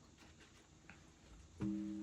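Music: after a quiet stretch, a plucked string note starts suddenly about one and a half seconds in and rings on, slowly fading.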